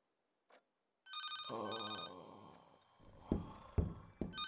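A telephone ringing in double rings: a pair of short rings about a second in and another pair near the end. Two sharp thumps fall between them, a little after the middle.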